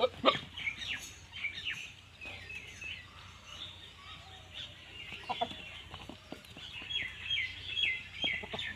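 Birds chirping: many short, high calls, each falling in pitch, repeated throughout, thickest near the end. A couple of sharp knocks near the start are the loudest sounds.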